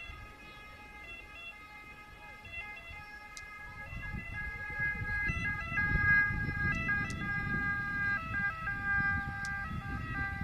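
Ambulance's two-tone siren, stepping back and forth between two pitches and growing louder from about four seconds in, along with a low rumble.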